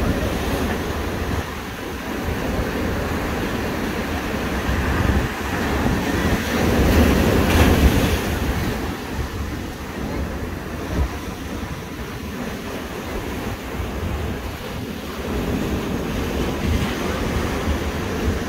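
Ocean surf washing in over rocks and sand, a steady wash of foaming water with one wave surging louder about seven seconds in. Wind rumbles on the microphone underneath.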